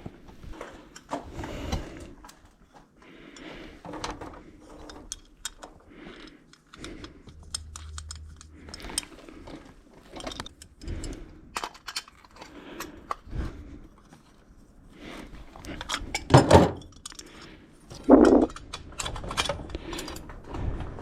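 Metal hand tools and steel EMT conduit being handled: scattered small clinks, taps and knocks, with two louder knocks about two-thirds of the way through.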